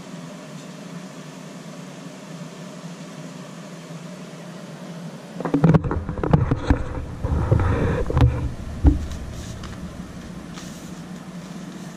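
Steady room hum, then from about five and a half seconds in, a few seconds of loud close handling noise: bumping and rubbing with several sharp knocks as the camera is moved, settling back to the hum near the end.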